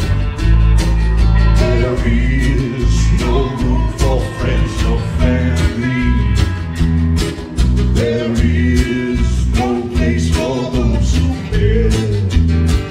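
A live country-rock band playing a song: strummed acoustic guitar, electric guitar, bass and drums, with a man's lead vocal singing over them.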